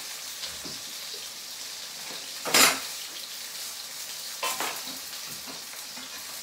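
Diced onion and cumin seeds frying in hot oil in a wok: a steady sizzle. A loud knock about two and a half seconds in and a smaller one a couple of seconds later.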